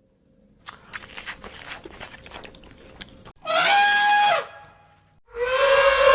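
Crunching clicks, then two loud drawn-out animal calls; the first falls in pitch at its end, and the second starts about a second later and is still going at the end.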